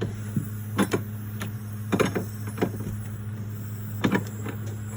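Hand tools clicking and knocking on metal fittings while the A/C receiver-dryer is being loosened: four or five sharp clacks spread over the few seconds, over a steady low hum.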